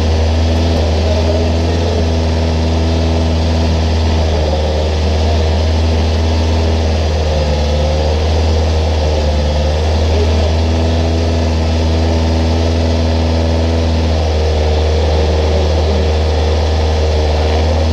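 Citroën C-Elysée WTCC race car's 1.6-litre turbocharged four-cylinder engine idling steadily, heard from inside the cabin.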